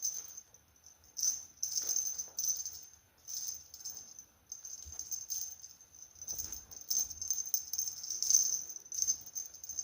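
Cat toy rattling in irregular bursts as it is batted about, with a high jingling ring.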